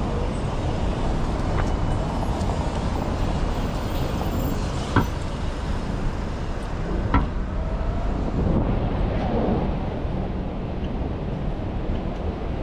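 City street traffic: a steady low rumble of passing cars and buses, with two short sharp knocks, one about five seconds in and another about two seconds later.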